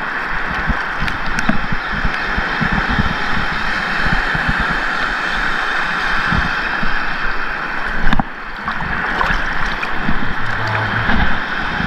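Sea water sloshing and splashing right at the microphone of a camera held at the waterline, with low wind rumble on the mic; a sharp knock about eight seconds in, then a short dip in level.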